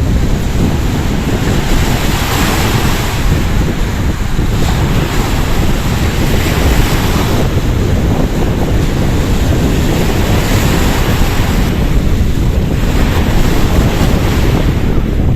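Wind buffeting the microphone, a loud steady rumble, over the wash of lake water at the shore.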